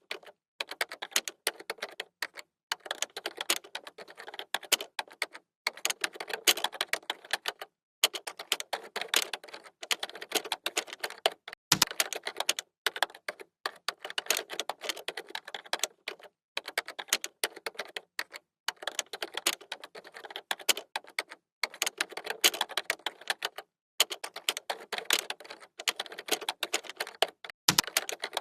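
Fast typing on a computer keyboard: rapid runs of key clicks broken by short pauses every second or two, with a heavier, deeper key thump twice.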